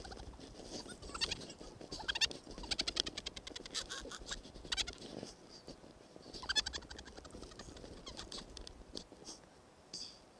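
A person laughing hard in several bouts of rapid, pulsing cackles at a skier's wipeout in deep powder.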